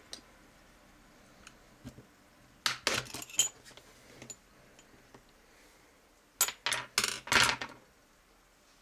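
Sharp metallic clicks and clinks as the stamped steel housing of a small microwave turntable synchronous motor is pried apart with a flat screwdriver. They come in two quick clusters, about three seconds in and again around six and a half seconds in.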